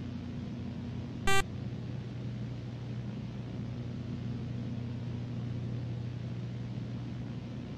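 Steady low electrical hum under tape hiss, with one short, loud electronic beep about a second in.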